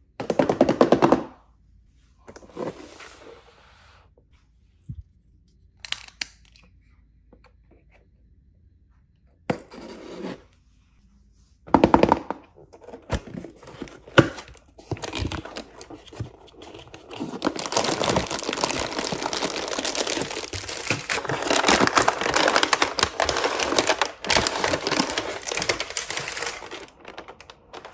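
Toy packaging and small plastic pieces being handled: scattered rustles, clicks and knocks, then about ten seconds of dense crackling from around halfway through.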